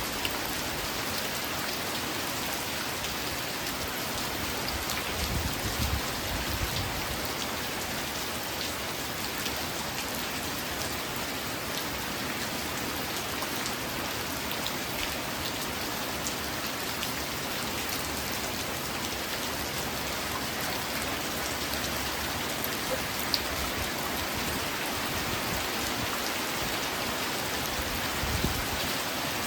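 Steady rain falling, a dense even hiss with scattered individual drops ticking through it. Brief low swells come in about six seconds in and again near the end.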